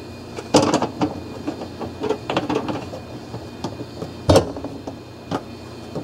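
Hands handling and fitting small plastic dishwasher filter parts and vent caps: a series of irregular plastic clicks and knocks, the loudest about four seconds in.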